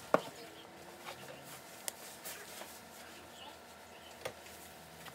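A few sharp clicks and light knocks, the loudest just after the start, another about two seconds in and another near four seconds: barber's tools being picked up and set down at the tool cart.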